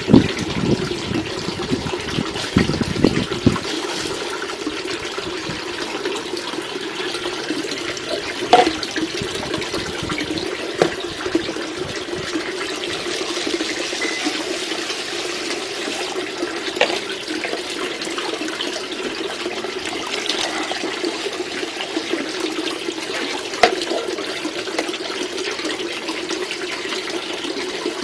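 Water pouring steadily from a plastic bottle into a plastic tub of paddy rice seed and splashing over the grain, to soak the seed before sowing. A few short knocks come through the pour.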